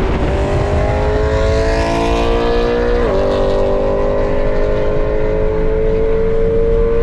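BMW engine heard from inside the car, accelerating moderately: the revs climb steadily, drop at a gearshift about three seconds in, then climb again. Steady road and tyre noise runs underneath.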